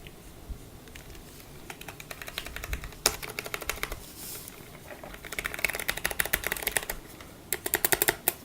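Rapid typing on a Qisan Magicforce 68 mechanical keyboard with Cherry MX Brown switches and PBT keycaps: three runs of quick key clacks.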